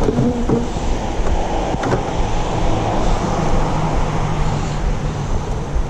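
Steady hum of many honeybees buzzing around an open hive.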